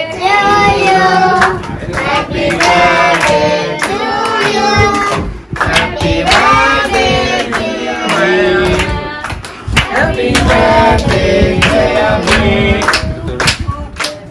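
A group of voices, children among them, singing a birthday song and clapping along in time.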